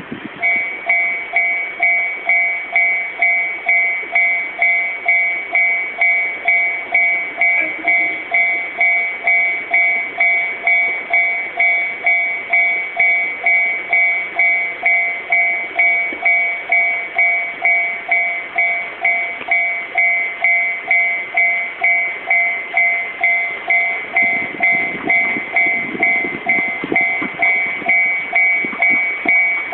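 Railway level crossing warning bell ringing steadily, about two two-tone dings a second, signalling an approaching train. A low rumble comes in near the end.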